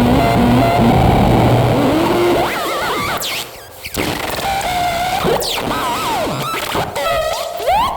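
Experimental electronic noise music: a dense wash of noise with wobbling gliding tones, thinning after about two and a half seconds into scattered rising and falling glides, sweeps and sharp clicks.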